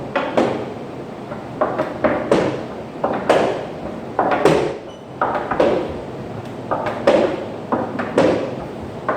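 An irregular series of sudden knocks and thuds, about one or two a second, each dying away quickly.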